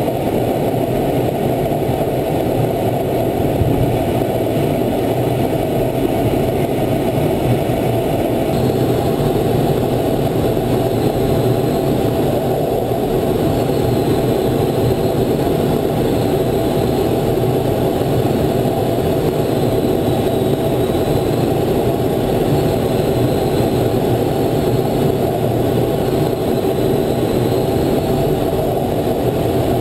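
Steady roar of twin jet engines and rushing air inside an F/A-18 Hornet's cockpit in flight, on final approach to an aircraft carrier. A faint high wavering tone comes and goes in the second half.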